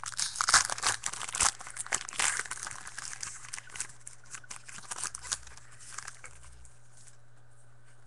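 A baseball card pack being torn open and its wrapper crinkled, with cards rustling as they are handled. The crinkling is busy for the first few seconds, then thins out and is nearly still near the end.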